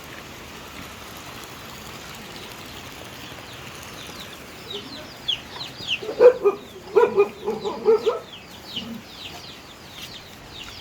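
Chickens clucking over a steady background hiss. About halfway through come a run of short, high, falling chirps and a burst of louder clucks.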